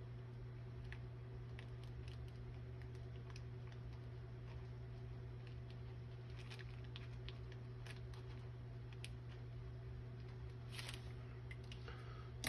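Faint, scattered light clicks and taps of small hardware being handled, over a steady low hum.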